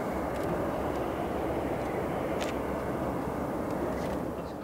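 Steady jet engine noise from a Lufthansa Airbus A380-841's four Rolls-Royce Trent 970 turbofans as the airliner rolls out after landing, a broad rumble that fades out near the end.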